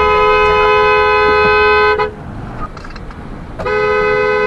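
Car horn held in a long blast of two steady notes together, stopping about two seconds in, then honked again with the same notes near the end.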